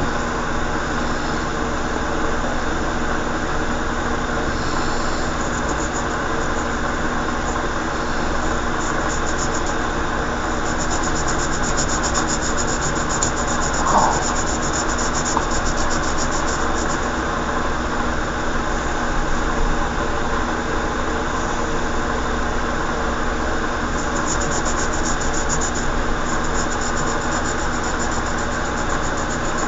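Steady machine hum, made of many fixed tones over a noise bed, as from a fan or motor running, with a brief faint chirp about halfway through.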